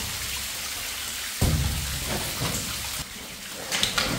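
Water falling from above and splashing steadily onto wooden planks and rock, a rain-like hiss. A loud dull thump about a second and a half in, and a few sharp knocks near the end.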